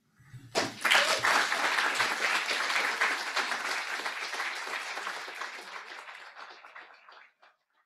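Audience applauding. It breaks out about half a second in and fades away gradually over the following seconds.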